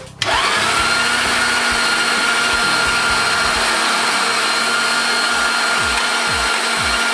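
Electric meat grinder switching on with a quick rising whine, then running steadily at speed as mutton and pork are ground through the fine 3 mm plate for the sausage binder.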